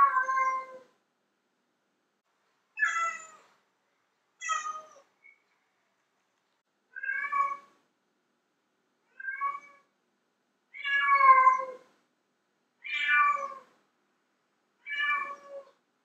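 Domestic cat meowing: eight separate loud meows, each under a second long, coming about every two seconds with dead silence in between.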